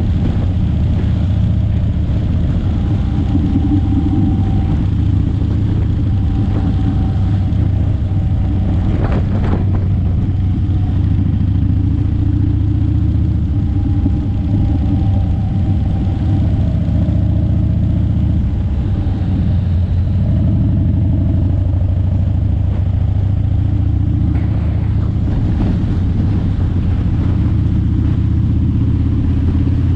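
Vehicle engine running steadily with road noise while driving, its pitch shifting a little as speed changes, with a brief knock about nine seconds in.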